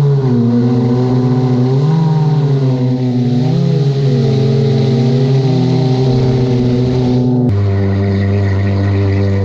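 Jet ski engine running at speed, its pitch wavering slightly up and down with the throttle; about seven and a half seconds in it cuts abruptly to a steadier, lower-pitched run.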